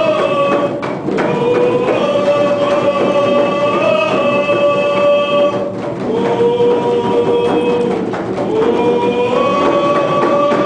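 A group of voices singing a song together in long held notes, the tune stepping up and down every second or two. Brief pauses for breath come about a second in and again near the middle.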